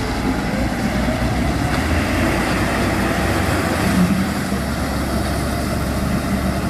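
Two large tractor diesel engines, a Fendt 930 Vario and a Claas Axion 930, running steadily under heavy load as they pull against each other in a tug of war.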